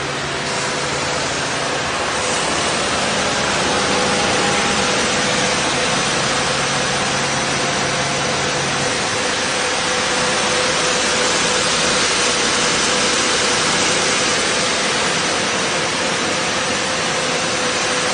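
Double-side plywood sanding machine running: a loud, steady rushing noise with a steady hum. A lower drone in it stops about halfway through.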